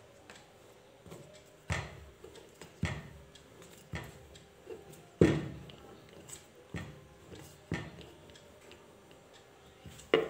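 Wooden rolling pin rolling out a sheet of semolina biscuit dough, knocking on the work surface in irregular taps about once a second, the loudest about five seconds in.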